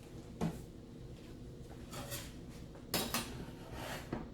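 A few light, scattered clinks and knocks of kitchen utensils and dishes against the cooker pot, the loudest about three seconds in.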